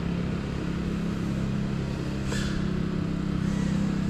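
GEPRC Cinelog35 FPV cinewhoop's motors and ducted propellers buzzing steadily in flight, with a brief hiss about two seconds in.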